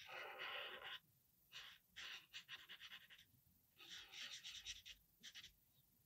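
Faint scratching of a marker pen on paper in quick back-and-forth strokes, filling in a small shape solid black, in two runs of strokes.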